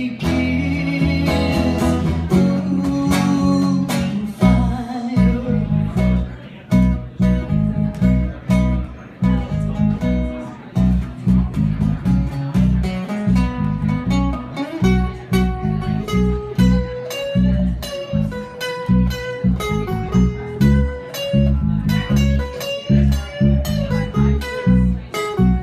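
Live band playing an instrumental break with no singing: guitars play a single-note melodic line over strummed chords, with a steady pulsing beat in the bass.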